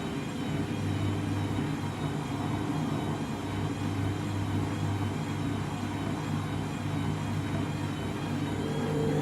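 Candy washing machine's motor and drum running through an intermediate spin with an overloaded, unbalanced load of whites: a steady hum with a faint high whine that wavers evenly up and down.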